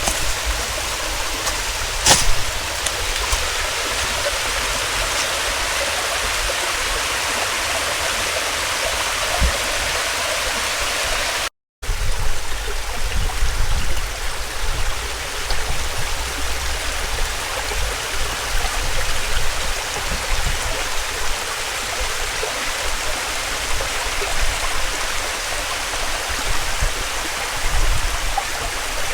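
Steady rush of running water from a stream or small waterfall, with a single sharp click about two seconds in and a brief break about twelve seconds in.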